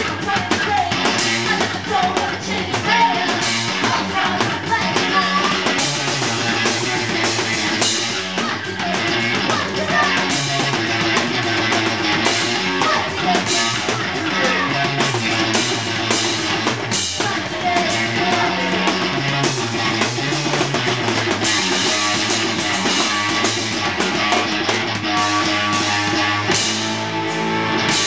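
A live rock band playing: electric guitar and drum kit together, continuous and driving, with a few held guitar notes near the end.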